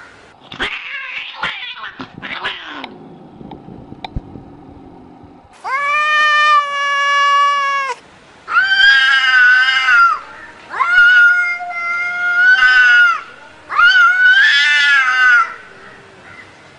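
Two tomcats in a standoff caterwauling: four long, drawn-out yowls, the first held on one pitch and the later ones wavering up and down, after a few harsh noisy bursts at the start.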